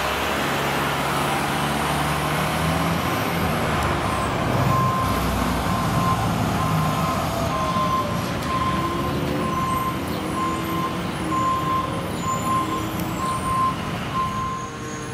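Aerial ladder fire truck's diesel engine running as it drives by and then sits at idle. From about four seconds in, a steady electronic beep repeats a little over once a second.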